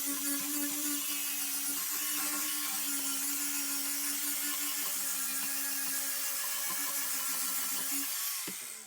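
A handheld power tool's electric motor running steadily at one speed, then switched off about eight seconds in and winding down.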